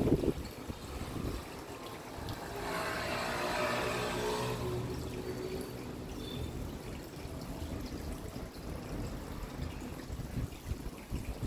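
Steady rain falling and trickling, with a louder swell lasting about two seconds roughly three seconds in.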